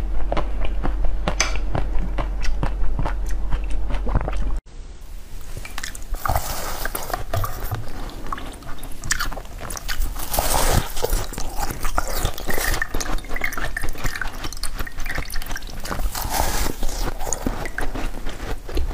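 Close-miked eating sounds: rapid crisp bites and chewing over a low hum. After an abrupt cut about four and a half seconds in, wetter crunching and chewing of a frozen fruit-shaped ice.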